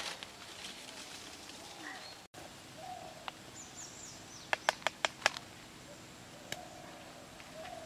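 Birds chirping in short high calls, with a quick run of five sharp knocks about halfway through: a wooden spatula tapping against a clay cooking pot.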